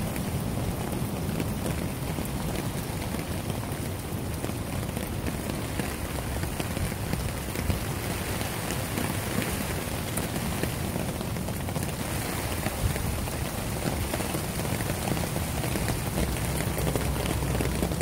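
Rain falling steadily on a tarp shelter: a dense, continuous patter of many drops striking the fabric.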